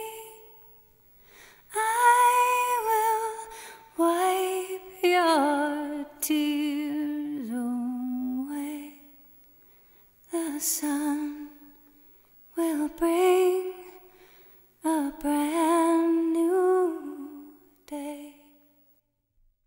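A woman's voice singing a slow, gentle lullaby melody unaccompanied, in short phrases separated by brief pauses.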